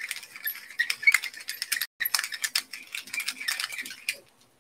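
Pepper mill grinding pepper: a quick run of dry, crackling clicks that breaks off briefly about two seconds in and stops shortly before the end.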